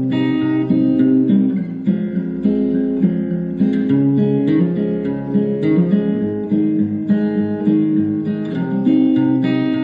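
Country music with strummed acoustic guitar played through the Lenovo Lecoo DS101 desktop soundbar at 80% volume, as a sound test of the speaker.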